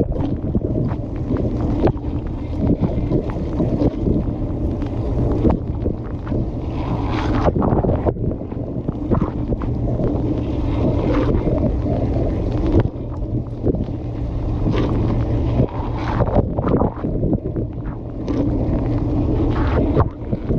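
Water churning and splashing steadily inside a running dishwasher, with the spray thrown against the camera and the machine's low hum underneath.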